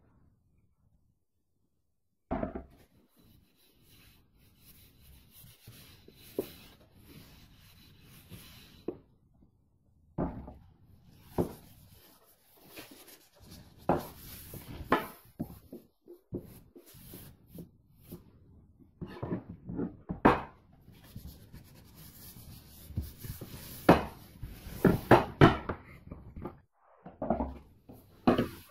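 A cloth wiping Danish oil into a wooden axe handle, starting about two seconds in: irregular rubbing and wiping strokes with scattered short knocks, busier and louder in the second half.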